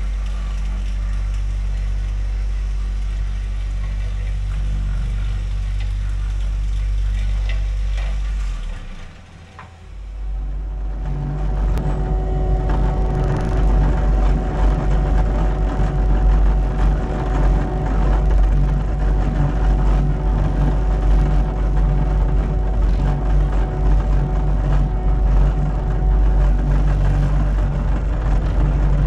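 Caterpillar 289D3 compact track loader running steadily with its diesel engine. Just under ten seconds in the sound drops away briefly, then comes back louder and rougher.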